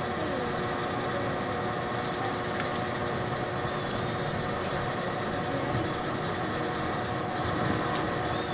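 A steady mechanical drone: a constant hiss with several held tones that does not change.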